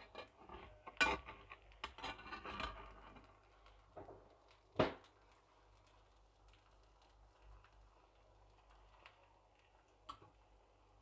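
Slotted metal spatula scraping and tapping against a non-stick frying pan as an omelette is folded over, light scrapes in the first few seconds and a single sharp clack about five seconds in.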